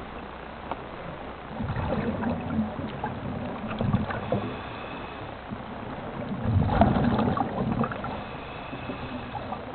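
Scuba diver breathing through a regulator underwater: two long bursts of exhaled bubbles, about five seconds apart, over a steady low hiss.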